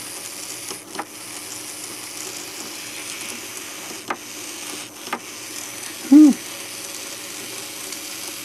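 Small geared DC motors in yellow plastic gearboxes running slowly on about 3.5 V, giving a steady whirr of gear noise. A few clicks sound through it, and about six seconds in a short low pitched sound rises and falls, the loudest moment.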